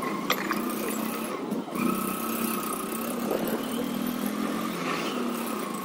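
Small 100cc motorcycle engine running steadily at low speed, with a brief click about a third of a second in.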